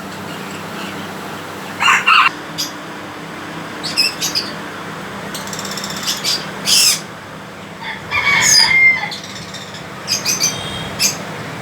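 Pet parrots giving short, sharp calls and squawks, about six spaced through, the loudest run about eight seconds in, over a steady low hum.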